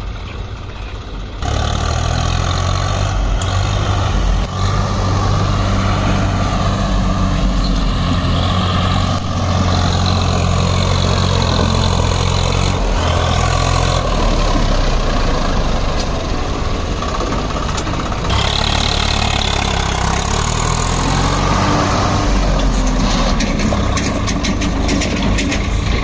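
Heavy diesel machinery engine running steadily, coming in abruptly about a second and a half in and changing its note around eighteen seconds in.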